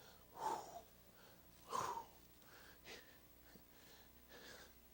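Quiet breaths and soft breathy vocal sounds from a man at a microphone, the two clearest about half a second in and just under two seconds in, over faint room tone.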